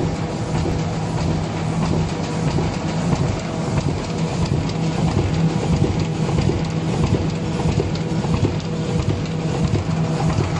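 Automatic rotary printer-slotter-die-cutter for corrugated cardboard running, a steady hum under dense, continuous mechanical clatter.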